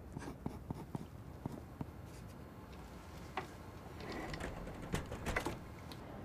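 Faint, scattered clicks and taps of eye-examination equipment being adjusted, over a low room hum, with a louder run of clicks about four seconds in.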